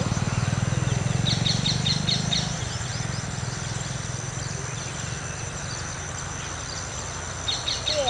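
Outdoor ambience: a quick run of small bird chirps about a second in, over a steady high insect drone. A low rumble, loudest early, fades after about two seconds.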